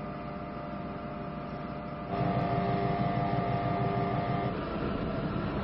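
Steady drone of a cargo ship's engines and machinery, with a hum of several steady tones over a low rumble. It gets louder about two seconds in.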